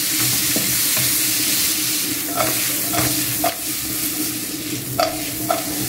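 Stir-fry vegetables sizzling in a hot wok on high heat, a wooden spoon stirring them, with several short knocks from about two seconds in as the vegetables are stirred and the wok is tossed. A steady low hum runs underneath.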